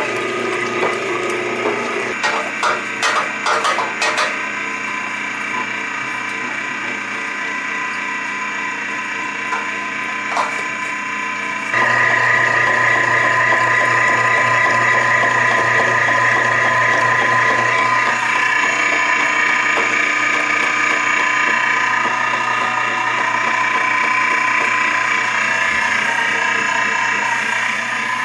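A 1.5-horsepower heavy-duty electric meat grinder running empty after cleaning, a steady motor hum and whine. A few knocks in the first few seconds, and the sound gets suddenly louder about twelve seconds in.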